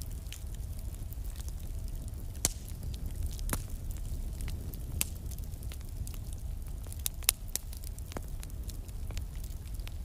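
Fire crackling, with irregular sharp pops over a low steady rumble; the loudest pops come about two and a half seconds in and just after seven seconds.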